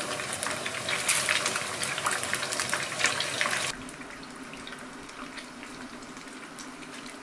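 Battered food deep-frying in a shallow pan of hot oil: a dense sizzle full of sharp crackles and pops. It cuts off suddenly about three and a half seconds in, leaving faint room tone.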